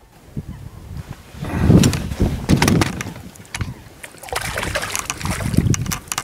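Water sloshing and splashing close by in irregular surges, with small knocks and clicks over it.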